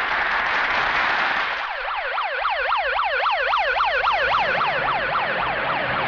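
A crowd applauding, then from about a second and a half in a fast warbling vehicle siren sweeps up and down about four times a second over the clapping.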